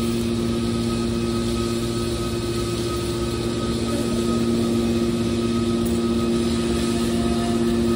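Hydraulic scrap-metal baler's power unit running steadily at idle: an electric motor and pump giving a constant hum with two low, steady tones and a fainter higher whine.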